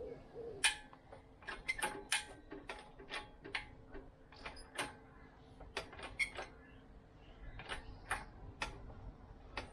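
A run of sharp mechanical clicks at an irregular two or three a second, varying in strength, over a faint steady hum.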